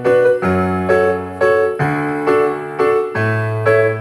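Instrumental keyboard music with no singing: electric-piano chords struck about twice a second over a bass line that changes note every second or so.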